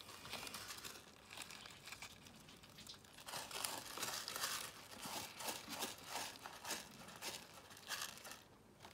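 Hedgehogs shuffling and scratching through granular bedding and litter: an irregular crunching, crinkling rustle of many small scrapes, loudest a little past the middle.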